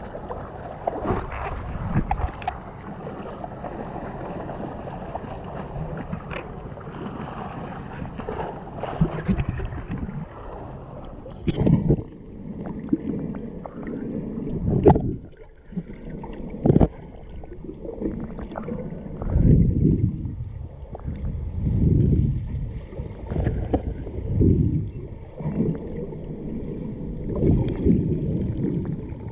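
Water sloshing and splashing around a camera held at the sea surface. About twelve seconds in it changes to the muffled rushing and gurgling of the camera underwater, with low surges of water noise every two to three seconds.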